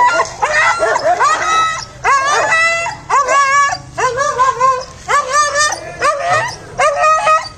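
Dogs barking and yelping at each other: a rapid string of high-pitched calls, each sliding up in pitch at its start.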